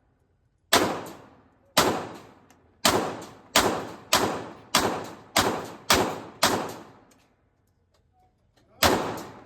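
Ten single firearm shots in slow semi-automatic fire, each trailing off in echo: nine shots spaced about half a second to a second apart, a pause of about two seconds, then one more near the end.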